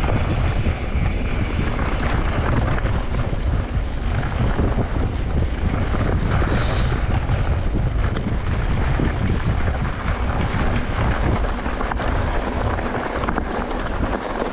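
Wind buffeting the microphone: a steady rushing rumble, heaviest in the low end and wavering in level.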